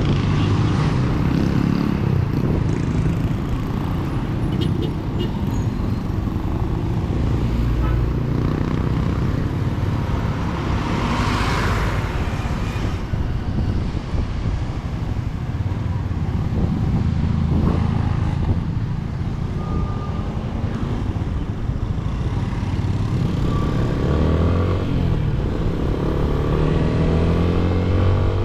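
Yamaha Sniper 155 motorcycle's single-cylinder four-stroke engine running through its stock exhaust while riding in traffic, its pitch shifting with the throttle and rising as it accelerates near the end. A rushing noise swells briefly about halfway through.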